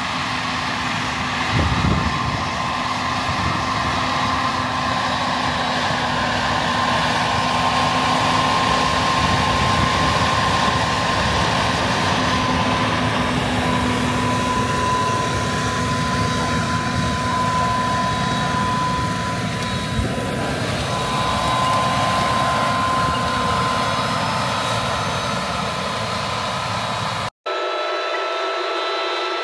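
Versatile DT620 track tractor's engine running steadily under load as it pulls a planter, with a faint steady whine over it. Near the end it cuts off abruptly and a thinner, higher whine of several steady tones takes over.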